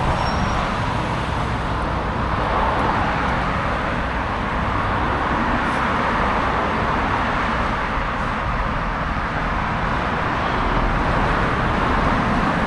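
City street traffic: a steady wash of passing cars' tyre and engine noise that swells and eases.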